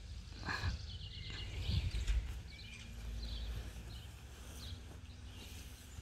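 Wind rumbling on the microphone, with birds chirping now and then.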